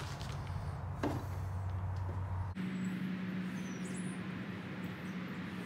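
A steady low background hum with a single sharp click about a second in. The hum cuts off suddenly about two and a half seconds in, and a slightly higher steady hum takes over.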